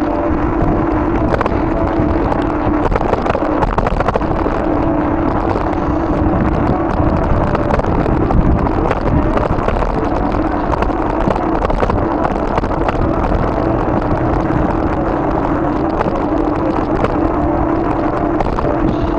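Bicycle ridden over snow in deep cold: a steady hum that drops out briefly now and then, with frequent crackling clicks from the tyres and rumbling wind on the microphone.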